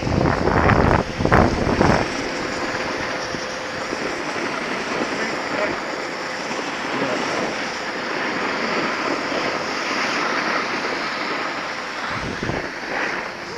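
Steady rushing hiss of skiing: skis sliding on snow, with wind on the microphone. There are louder, rumbling gusts in the first two seconds.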